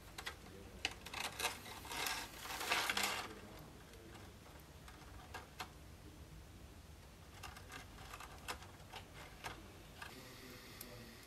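Small metal tools and parts handled on a workbench: scattered light clicks and taps, with a louder stretch of scraping and rustling about one to three seconds in.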